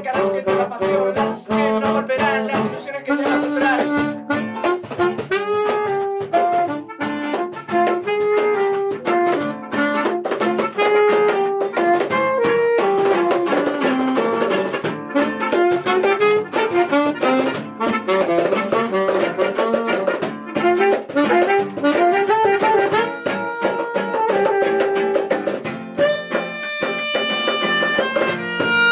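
Live instrumental music: a saxophone plays a melody over strummed acoustic guitar. Near the end a melodica comes in with steady held notes.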